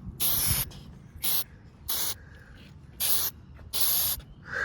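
Aerosol spray paint can spraying in five short hissing bursts, each less than half a second, with brief pauses between them.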